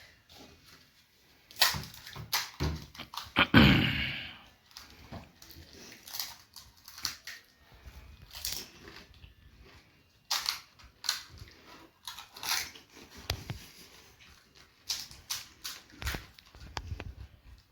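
Crisp fuchka (pani puri) shells crunching as they are bitten and chewed, in quick irregular crunches, with mouth-eating noises in between.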